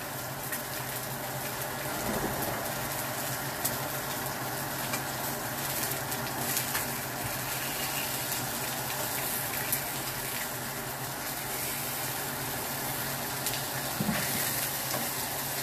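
Spice-rubbed salmon fillets and chopped garlic sizzling in oil in a nonstick frying pan, a steady hiss throughout, with a few light clicks along the way.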